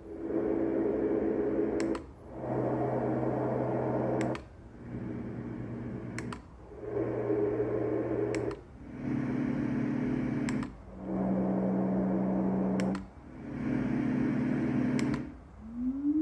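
LectroFan Classic noise machine stepping through its sound settings, a new steady fan-like hum and noise about every two seconds. Each change comes with a faint click and a brief drop-out, about seven changes in all.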